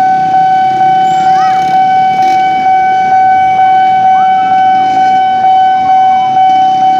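Railway level-crossing warning bell sounding continuously as one steady ringing tone, pulsing a couple of times a second: a train is approaching. Waiting motorbike traffic rumbles underneath, with a few short rising-and-falling tones.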